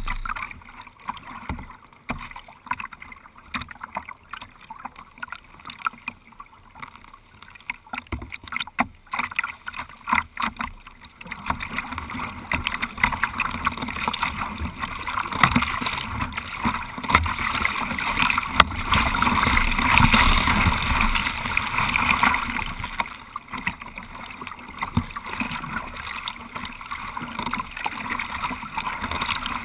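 Kayak paddle strokes splashing in seawater, at first as separate splashes, then a louder continuous rush of water past the kayak from about eleven seconds in, strongest around twenty seconds.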